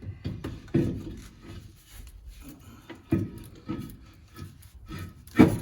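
Heavy steel brake drum being worked onto a truck's front hub: a series of clunks with metal scraping between them, the loudest clunk near the end.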